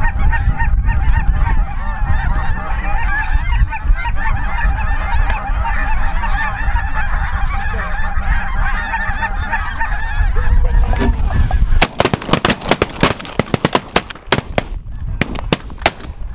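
A large flock of geese honking, many overlapping calls over a low rumble. About twelve seconds in the honking stops and a quick run of sharp bangs or knocks follows.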